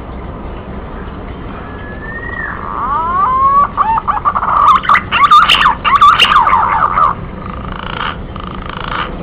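A bird calling: a run of wavering whistled notes that glide up and down, starting about a second and a half in and breaking off about seven seconds in, over a steady background hiss.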